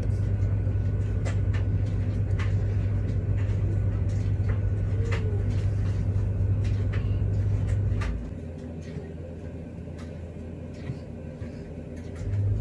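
A steady low hum that cuts out about eight seconds in and comes back near the end, with scattered light clicks and taps of a silicone spatula against a glass bowl as dry flour is stirred.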